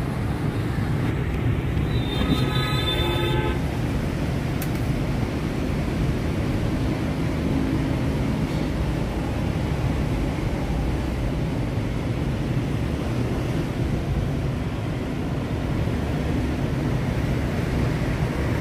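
Steady rumble of street traffic, with a vehicle horn sounding once for about a second and a half, about two seconds in.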